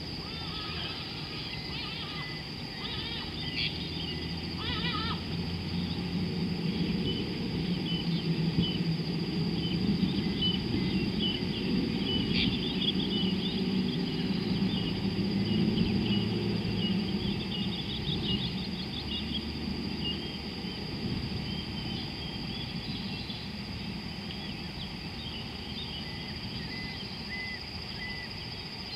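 Savanna ambience: a steady high drone of insects and scattered bird chirps, with a low rumbling sound that swells up through the middle and fades again.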